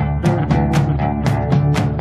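Background music: guitar and bass over a steady beat.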